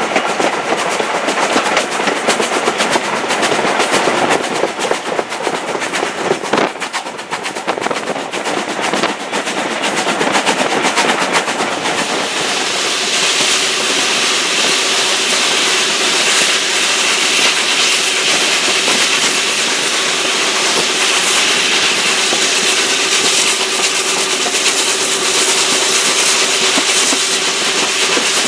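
LMS Black Five 44806 steam locomotive working, heard from an open carriage window just behind it: a fast run of exhaust beats over the rumble and clatter of the train. About twelve seconds in it changes to a steadier rush of wheel and exhaust noise with a faint steady hum.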